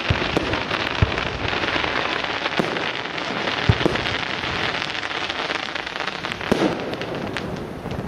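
Fireworks display: a dense, steady crackling like heavy rain, broken by four deep bangs of bursting shells spread through it.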